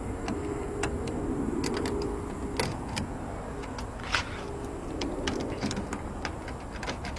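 Scattered small metallic clicks and ticks of a locksmith's pick-decoder tool being worked inside a car's door lock, over a low steady hum.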